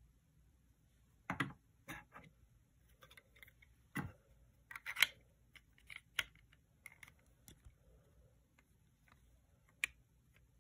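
Irregular light clicks and clacks of plastic LEGO pieces being handled and fitted together, the loudest about one, four and five seconds in.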